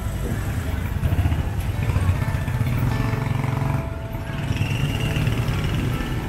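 Small motorcycle engines running close by, puttering at low speed as they edge through foot traffic.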